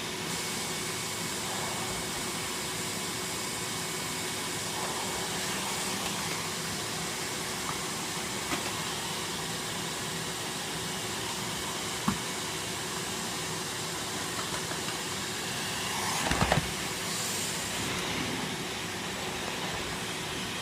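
Numatic NRV200-T commercial vacuum cleaner running steadily, fitted with its turbo electric floor tool. A sharp click about twelve seconds in, and a brief cluster of knocks and rattles about sixteen seconds in.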